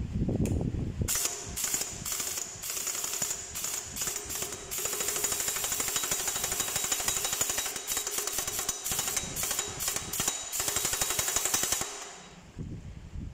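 Impact wrench hammering rapidly on the crankshaft pulley bolt of a Toyota 13Z forklift engine, tightening the pulley onto the crankshaft. It starts about a second in with several short bursts, then runs for a long stretch and stops near the end.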